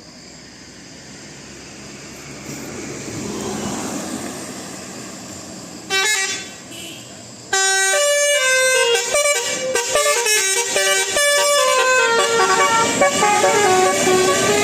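A bus's engine rumble grows louder, then a short horn blast comes about six seconds in. From about seven and a half seconds a Basuri telolet musical bus horn plays a loud melody of stepping tones.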